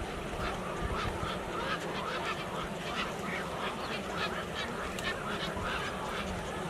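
A large flock of birds calling together, many short calls overlapping in a dense, continuous chorus.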